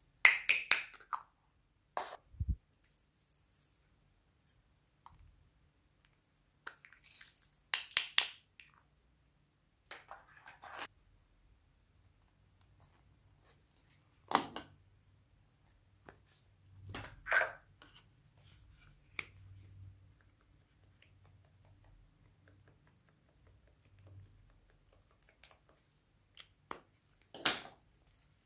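Small plastic toys handled by hand: scattered sharp clicks and taps in short clusters, with quiet between.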